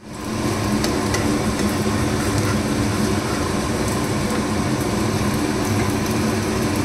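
Rava uttapam sizzling in oil in a nonstick frying pan, with a steel spatula scraping under it to lift it. A steady low hum runs underneath.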